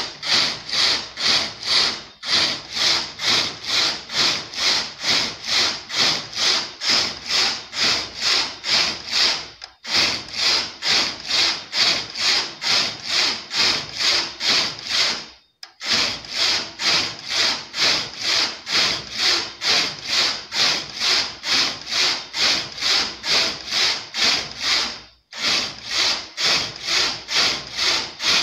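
Knitting machine carriage being run back and forth across the needle bed, knitting rows: a rhythmic rasping stroke, about two or three a second, each one a pass of the carriage, with brief pauses a few times.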